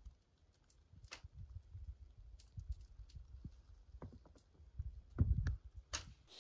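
Scattered light clicks and knocks over a low, uneven rumble, with a heavier low thump about five seconds in.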